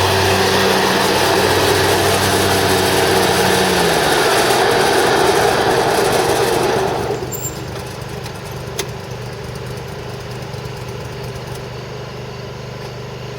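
The Kohler Command 25 hp V-twin engine of an Exmark Lazer Z commercial zero-turn mower running loud. About four seconds in the engine speed drops, and about seven seconds in the loudest part of the noise falls away, leaving the engine running steadily and more quietly.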